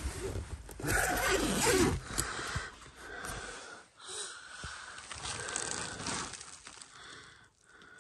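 Rustling and scraping of rooftop tent fabric as the tent is opened from inside, loudest in the first two seconds, with a person breathing.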